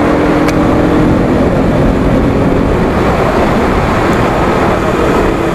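Heavy wind rush over the microphone of a moving KTM RC 200 motorcycle. Under it, the bike's single-cylinder engine runs at a steady pitch for the first couple of seconds, then is drowned out by the wind.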